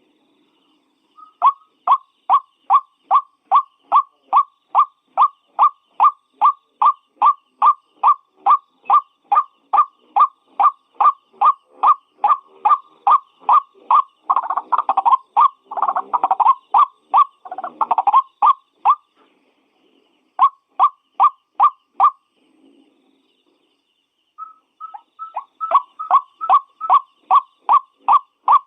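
White-breasted waterhen calling in a long, fast series of repeated croaking notes, about two to three a second. Partway through the calls turn harsher and crowd together for a few seconds, then break off twice for a second or two before the series resumes.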